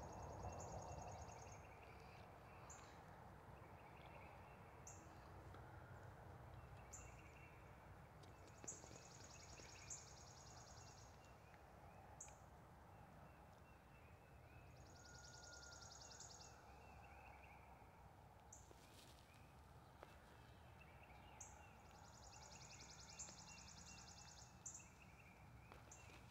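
Quiet woodland ambience with distant songbirds. A high trill of a second or two repeats every few seconds, among short high chirps and fainter warbling.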